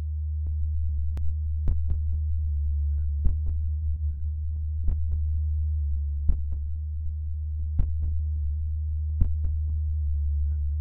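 Composed soundtrack in the style of musique concrète: a steady low hum tone under sharp clicks, the strongest recurring about every second and a half, with fainter clicks between.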